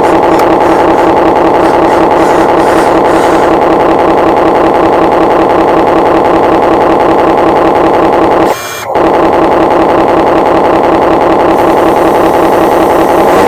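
RC excavator's drive running steadily: a loud, even mechanical hum with a strong whine. The sound drops out briefly a little past the middle.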